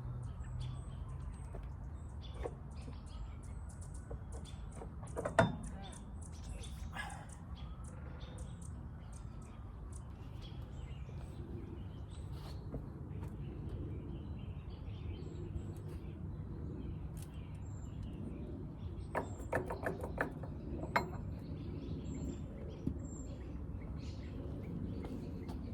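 Occasional clinks and knocks of metal parts as a generator is taken apart. There is a sharp knock about five seconds in and a quick run of clinks near the end, over a steady low background noise. Birds chirp faintly in the background.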